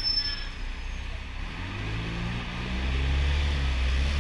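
City street traffic, with a large vehicle's engine, likely a double-decker bus, running low close by and growing louder from about halfway. A thin high whine stops shortly after the start.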